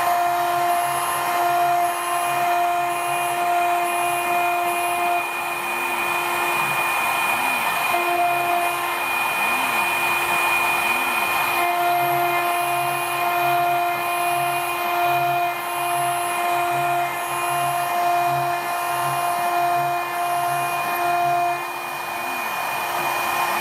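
CNC engraving machine's spindle running with a steady high whine as its fine engraving bit cuts a brass workpiece. A rhythmic low pulsing and short rising-and-falling tones come and go as the axes move the cutter along the design.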